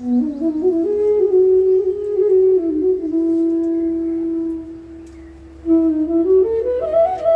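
A wind instrument playing a slow bhajan melody: a few notes stepping upward, a long held note, then another climb to a higher held note near the end.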